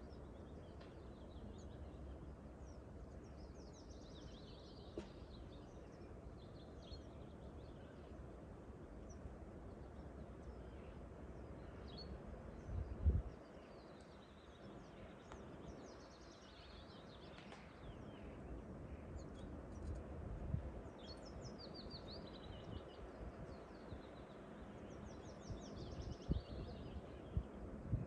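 Small songbirds singing, with high trilled phrases every few seconds, over a steady low rumble of wind. A brief low thump comes a little under halfway through.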